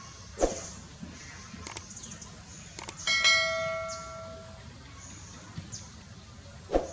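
A single struck bell-like metallic ring about three seconds in, with several overtones, fading away over about a second and a half. Sharp knocks come about half a second in and again near the end.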